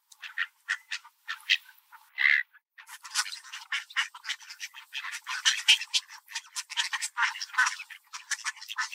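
A flock of mallards quacking and chattering while they feed. The calls come sparsely at first, then from about three seconds in become dense and overlapping.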